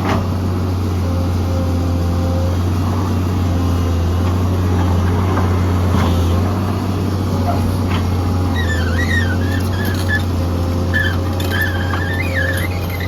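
SANY SY210C-9 excavator's diesel engine running steadily. A wavering high-pitched squeal joins about two-thirds of the way in.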